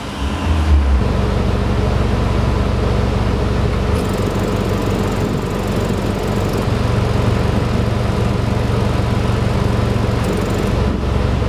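Volkswagen Golf R Mk7 Estate's 2.0-litre turbocharged four-cylinder idling steadily through a Remus valved cat-back exhaust, heard at the tailpipe with the exhaust valve flap about half open.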